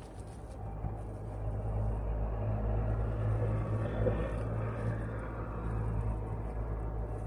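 Low rumble that builds over a few seconds and eases off again, over a steady low hum.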